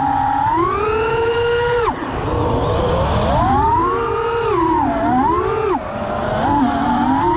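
FPV quadcopter's Emax 1606 brushless motors and three-blade props whining, the pitch rising and falling with the throttle and dropping sharply about two seconds in and again near six seconds, over wind noise on the onboard camera's microphone.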